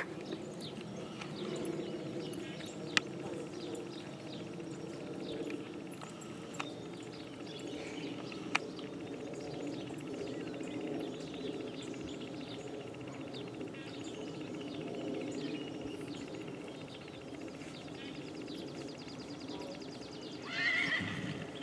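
A horse's hoofbeats muffled on sandy arena footing, with a few sharp clicks and a brief louder call near the end.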